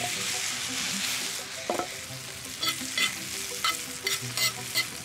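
Grated potato frying in butter in a cast-iron pan, sizzling steadily. From about halfway through, a spatula scrapes and taps against the pan several times as the hash brown is pressed flat.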